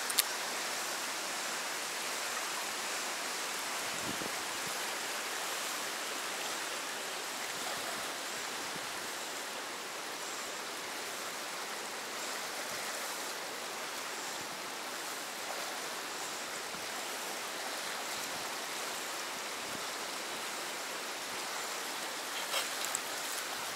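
Fast-flowing river rushing through a narrow rock channel over rapids: a steady, even rush of whitewater.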